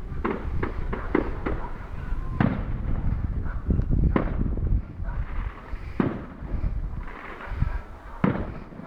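Fireworks display: a rapid run of bangs and crackles over a low rumble, then four louder bangs about two seconds apart, the barrage thinning toward the end.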